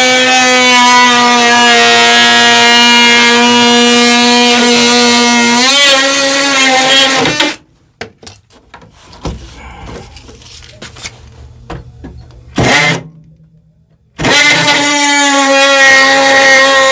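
Electric power saw running at a steady high whine as it cuts out rotted wood at the base of a wall. Its pitch dips briefly about six seconds in, and it stops a moment later. A few knocks and a brief burst of the saw follow before it starts cutting again about fourteen seconds in.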